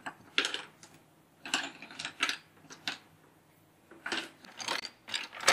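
Small painted wooden puzzle pieces clattering against each other and the table top as they are tipped out of their tray and moved around by hand, in several short clusters of clacks.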